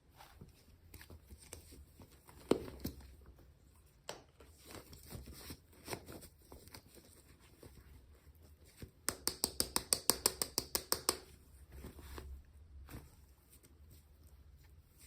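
Hands unboxing small toy packaging: scattered clicks, taps and rustles of plastic and paper, with a rapid run of about twenty sharp clicks, some ten a second, for about two seconds just past the middle.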